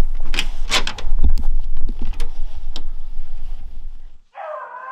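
Irregular clicking, knocking and rattling as a beagle is handled and fitted with its collar on a metal-topped truck tailgate, over a low rumble. Just past four seconds this stops abruptly, and a drawn-out pitched call begins and fades.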